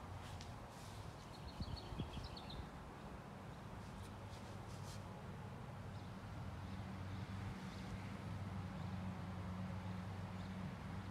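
Hampton Bay Palm Beach ceiling fan running on low speed, its motor giving a steady low hum that grows stronger about six seconds in. A brief run of high chirps comes about two seconds in.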